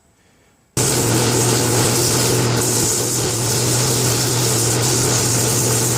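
A wood lathe running steadily with a low motor hum, while sandpaper held against the spinning cherry wood makes a loud, even hiss. It starts abruptly about a second in.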